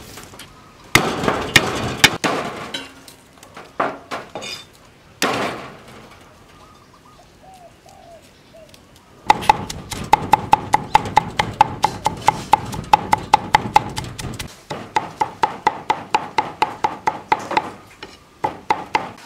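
Cleaver on a wooden chopping board: several sharp whacks crushing garlic cloves, then from about halfway through fast, rhythmic chopping at about five strokes a second as the garlic is minced. Each chop gives a faint metallic ring.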